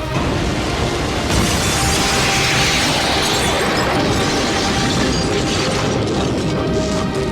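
Dense crackling and rumbling sound effects, with a bright hissing surge from about a second in that fades by the middle, over low rumble and faint music.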